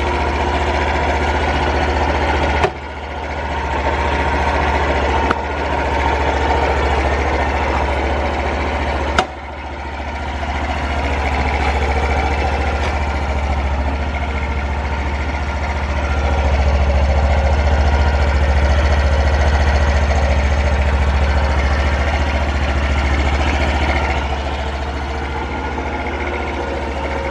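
Honda Super Cub 50 FI's small air-cooled single-cylinder four-stroke engine running steadily at idle, which the seller judges free of abnormal engine noise. Two sharp clicks come about three and nine seconds in, each followed by a brief dip in the sound.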